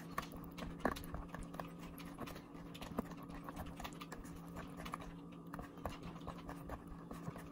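Wire whisk beating pumpkin pie filling in a glass bowl: quick, irregular light clicks of the wires against the glass with the soft slosh of the liquid filling, over a faint steady hum.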